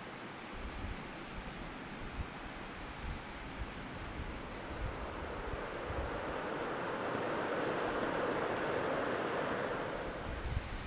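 Wind buffeting the microphone over an open-air hiss, swelling into a louder rush in the second half. A faint high pulsing sound runs through the first half.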